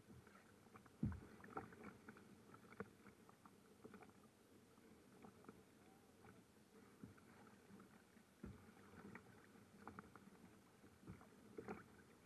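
Faint lapping and slapping of small waves against a kayak hull, with scattered light knocks and a soft thump about a second in.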